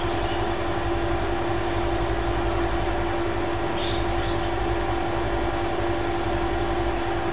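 Steady machine hum with a constant pitched tone over a low rumble and even hiss, unchanging throughout.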